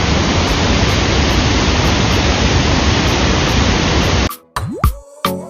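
Loud, steady rush of a waterfall's falling water, with no pitch to it. About four seconds in it cuts off abruptly and background music with sharp percussive hits takes over.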